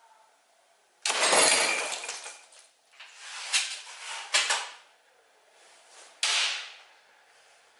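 Glass jar shattering when a slingshot shot hits it, a sudden crash about a second in that trails off, followed by several smaller sharp clinks of glass over the next few seconds and another sharp hit about six seconds in.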